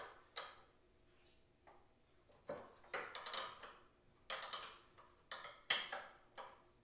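Ratchet wrench clicking in short, irregular bursts as it is swung back and forth, loosening the nuts on a mini bike's rear chain tensioner.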